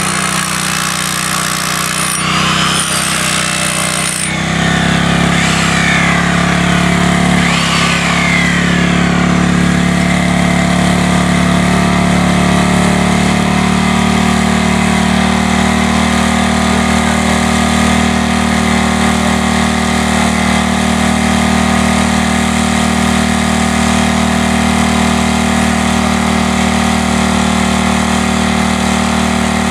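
Corded electric hammer drill used as a jackhammer, hammering steadily into the ground to open holes for fence posts. It grows louder about four seconds in and then runs on evenly.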